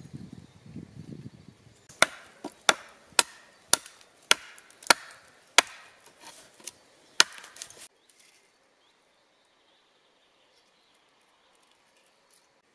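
Hatchet chopping a thin wooden pole held on a stump: about ten sharp wooden strikes, roughly two a second, starting about two seconds in.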